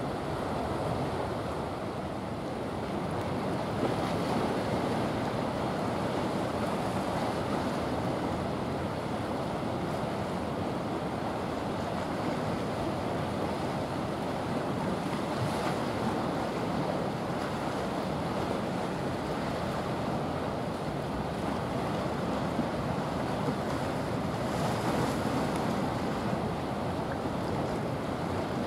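Steady rushing noise of wind and sea water, without a distinct engine tone, getting a little louder about four seconds in.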